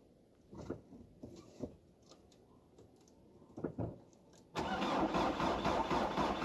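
VW Passat B4's 1.9 TDI (1Z) four-cylinder turbodiesel cold-starting at −10 °C on a weak battery, with glow plugs probably not heating and a waste oil/diesel/petrol mix in the tank. A few faint, irregular puffs come from the exhaust, then about four and a half seconds in the engine catches suddenly and runs loudly.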